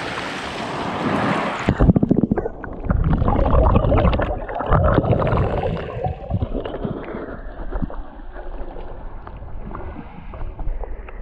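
Seawater washing at the surface around the camera, then, about two seconds in, the sound turns suddenly muffled as the camera goes under: gurgling, sloshing and knocks of moving water heard through the submerged camera, busiest over the next few seconds and quieter after that.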